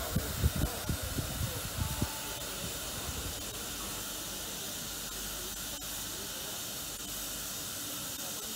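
FS Gr. 640 steam locomotive standing at rest, giving off steam with a steady hiss. There are a few low, irregular thumps in the first two seconds, then only the hiss.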